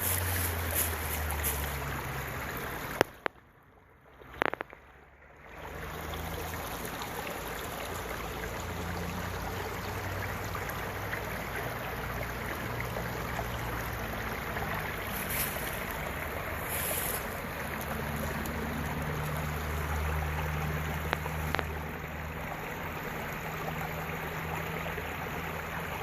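Steady rush of running water, with a low rumble underneath. It drops out almost completely for about two seconds a few seconds in, then resumes.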